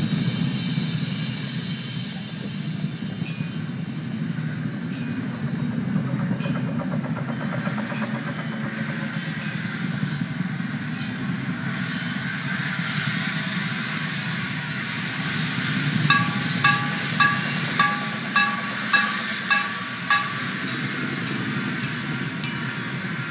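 Outdoor percussion ensemble: a steady rumbling wash of sound, and about two-thirds of the way through a run of about eight pitched, ringing strikes a little over half a second apart, the loudest sounds here.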